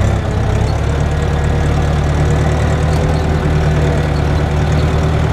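Zetor 12145 tractor's six-cylinder diesel engine running at a steady speed as it drives, heard from inside the cab.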